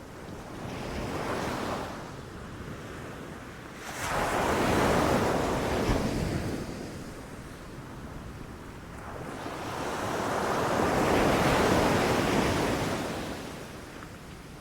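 Ocean waves breaking and washing up the shore in slow surges: a small wave about a second in, a larger one crashing in suddenly about four seconds in, and another building and receding in the latter half.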